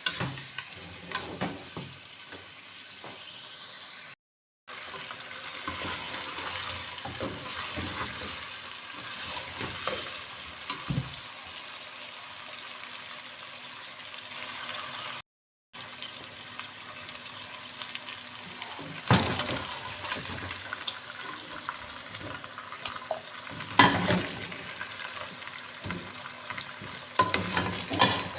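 Food sizzling in a pan while being stirred, with scattered clinks and scrapes of a spoon against the pot. The sound cuts out completely twice for a moment.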